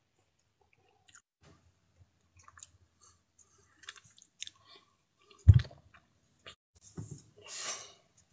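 Small clicks and smacks from a mouth close to a phone's microphone, like chewing, with a loud bump about five and a half seconds in and a short breath out near the end.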